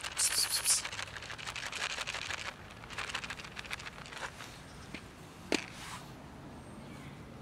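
Dry cat food rattling in a plastic tub as it is carried and set down, a dense clatter of small clicks with a short hiss near the start. After that come quieter scattered clicks of cats crunching the kibble, with one sharp click about five and a half seconds in.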